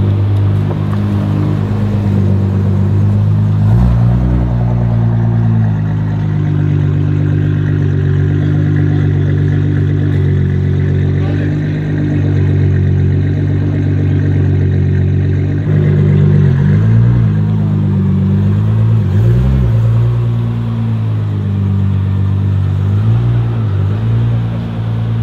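Nissan GT-R R35 twin-turbo V6 engines running at low revs with a steady, deep exhaust drone. A few small rises and dips in pitch come in the second half as the cars move off slowly.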